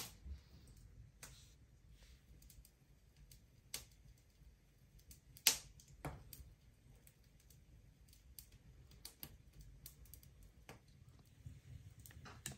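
Scattered small clicks and taps of hands handling beads, needle and thread, with the loudest click about five and a half seconds in.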